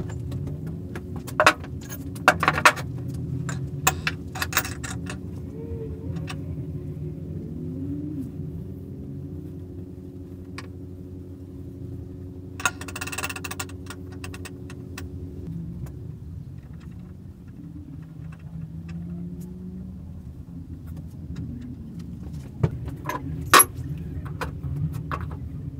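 Metal vise parts clinking and knocking against each other and the wooden workbench as they are handled and set down: a scatter of sharp clinks, a quick cluster around the middle and a loud one near the end. Under them runs a steady low hum that stops a little past halfway.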